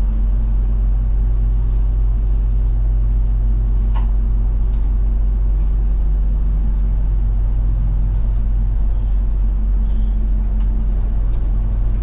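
Route bus running steadily along the road, heard from inside the cabin: a low, even engine and road drone. A light click comes about a third of the way through.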